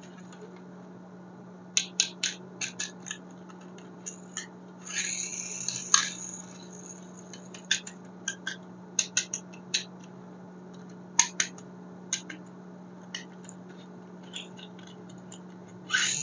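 Small plastic toys and packaging being handled: irregular sharp clicks and taps, with a brief crinkling rustle about five seconds in, over a steady low hum.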